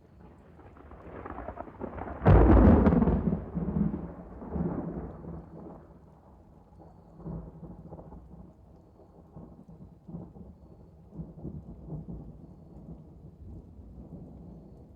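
A close thunderclap: rumble builds over the first two seconds, then a sharp, loud crack about two and a half seconds in, rolling off into long low rumbles that die away with a few smaller swells.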